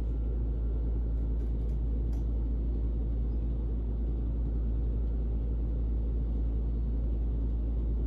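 Steady low rumble of room background noise with a faint hum and no speech, unchanging throughout.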